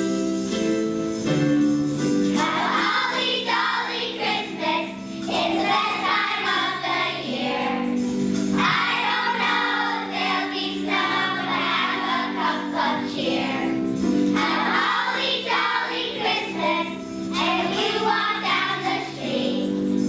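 Children's choir of second graders singing a holiday song with jingle bells in the accompaniment; the instrumental opening gives way to the singing about two seconds in.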